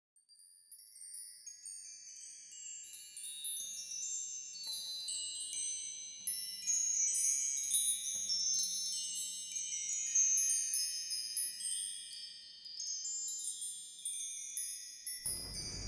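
Wind chimes tinkling: many high, overlapping ringing notes that cut off abruptly near the end.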